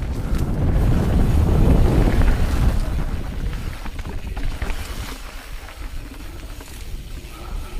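Wind rushing over an action camera's microphone during a fast mountain-bike descent on a dirt trail, with the tyres rumbling over dirt and dry leaves and a few clicks and knocks from the bike. It is loudest in the first couple of seconds and eases off about halfway through.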